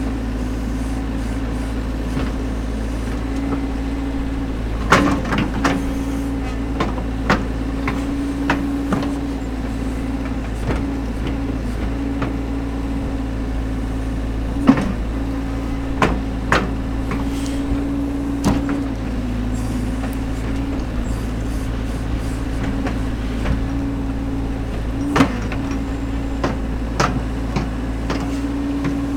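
Caterpillar backhoe loader's diesel engine running steadily under hydraulic load, its pitch dipping and rising slightly as the boom and bucket work. About a dozen sharp metallic clanks and knocks from the digging arm and bucket are scattered through it.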